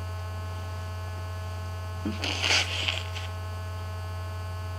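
Steady electrical mains hum in the recording, with a brief breathy noise about two seconds in.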